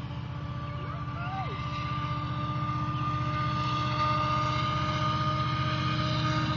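Diesel locomotive of an approaching GO Transit commuter train: a steady engine rumble with a fast low pulsing and a few held tones, growing gradually louder.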